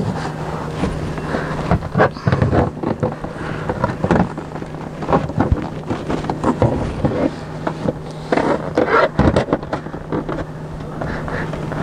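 Screwdriver prying at a clipped-on plastic interior trim panel of a Tesla Model S, giving irregular clicks, knocks and scrapes as the panel refuses to pop loose. A steady low hum sits underneath.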